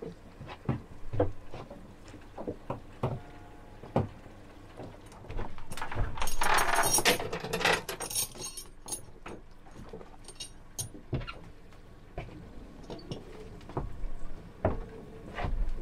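Anchor chain being hauled aboard a small boat by hand, clinking and knocking against the side, with about two seconds of continuous rattling some six seconds in as a run of chain comes over the gunwale.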